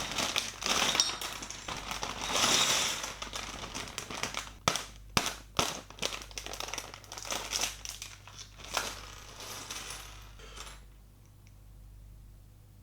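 Plastic bag of Lego pieces crinkling as it is opened and handled, with small plastic bricks clicking and clattering; it stops about eleven seconds in.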